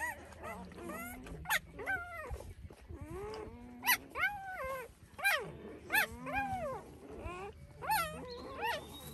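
A litter of three-day-old Anatolian Shepherd/Great Pyrenees mix puppies whining and squealing as they nurse: many short, high cries that rise and fall, several overlapping, with sharper squeals now and then.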